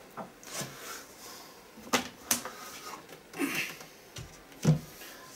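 Handling noise from a wooden pet-house cabinet being assembled: short scrapes and shuffles with a few sharp wooden knocks, two close together about two seconds in and a heavier thump near the end.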